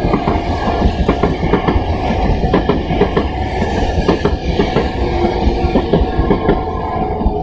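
Kintetsu electric train passing over a level crossing close by, its wheels clacking rapidly over the rail joints, with the crossing's warning bell ringing faintly underneath.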